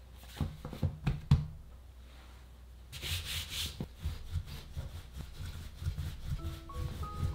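Wooden rolling pin rolling back and forth over a folded block of laminated pastry dough, a steady rubbing run of low thumps starting about three seconds in. Before it, a few light knocks from the hands on the floured counter.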